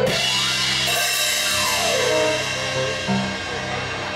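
Live blues band of electric guitar, bass guitar, drums and keyboard: a cymbal crash right at the start, then held chords ringing under a descending electric guitar run, as the song closes.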